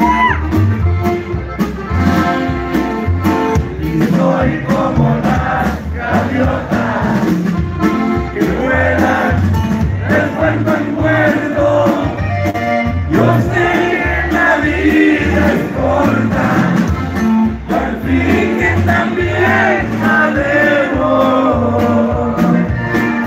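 Live norteño band music: a button accordion playing the melody over drums and bass, with a steady beat underneath.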